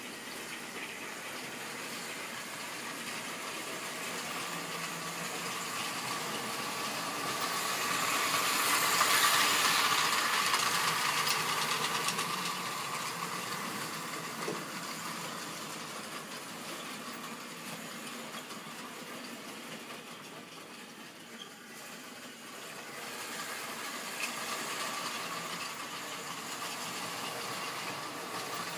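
Model railway trains running on the layout: the whirr of small electric locomotive motors and wheels rolling along the track. It grows louder to a peak about nine seconds in as a train passes close, fades, then builds again near the end, with a few single clicks from the track.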